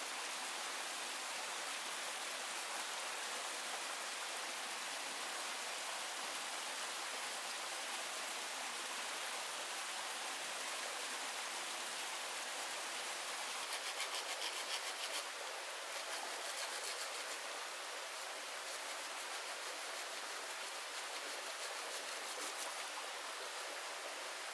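Steady rushing hiss of a forest stream, with a brief run of rapid crackling a little past halfway.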